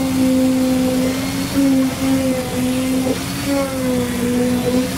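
Handheld electric concrete vibrator's motor whining steadily, its pitch sagging briefly now and then as the shaft works in the freshly pumped concrete.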